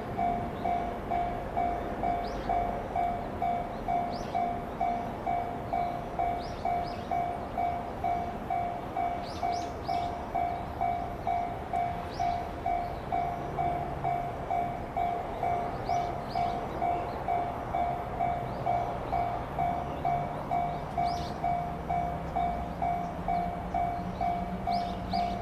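Japanese level-crossing warning bell ringing steadily, one ding about twice a second, with a train's low rumble growing under it in the second half as a train approaches.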